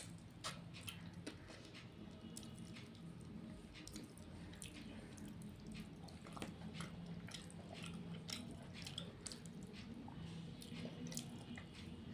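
A person chewing mouthfuls of rice and fish curry, with many small wet clicks and smacks of the mouth coming irregularly.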